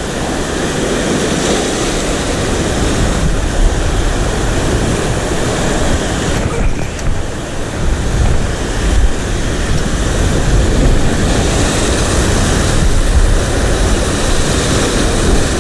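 Steady, loud wind noise buffeting the microphone, with waves washing on the shore underneath.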